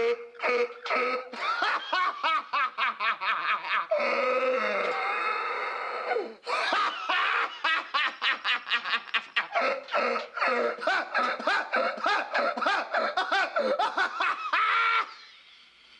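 Long, loud bout of laughter in rapid bursts of several a second, with a drawn-out stretch in the middle, stopping about a second before the end.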